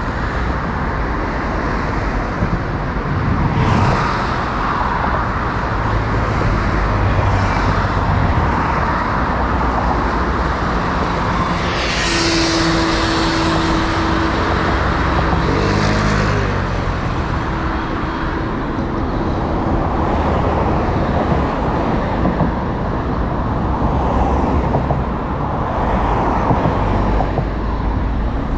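Steady city road traffic with cars passing close by one after another. A few louder pass-bys come about 4, 12 and 16 seconds in, and a vehicle's engine hum holds for several seconds in the middle.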